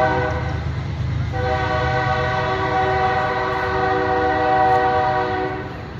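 Train horn sounding a steady multi-tone chord over a low rumble: one blast breaks off about a second in, and a second long blast follows until near the end.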